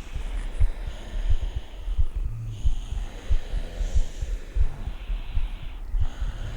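A dense mix of many people breathing in their sleep and snoring, layered with cats purring: an irregular low throbbing rumble under a soft breathy hiss.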